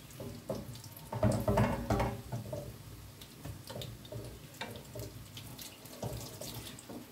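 Water running and splashing, loudest between one and two seconds in.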